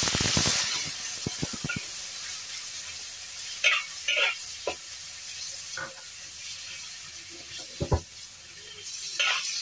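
Sliced meat dropped into hot oil in a wok, sizzling loudest as it lands and then steadily as it fries. A metal spatula knocks and scrapes against the wok as the meat is stir-fried.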